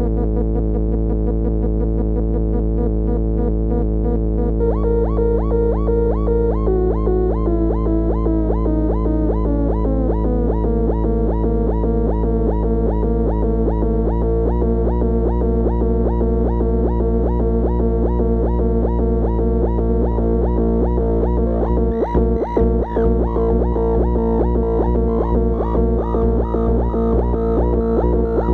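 MFOS Weird Sound Generator, a dual-oscillator analog drone synth, holding a dense buzzing drone of stacked steady tones as its knobs are turned. A warbling pulse joins a few seconds in, and one tone steps down in pitch. About two-thirds of the way through, the drone briefly stutters.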